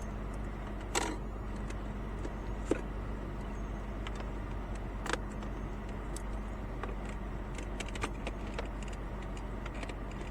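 Steady low hum of an idling car heard from inside the cabin, with scattered small clicks and rattles of cables and a plug being handled; sharper clicks about a second in, near three seconds and near five seconds.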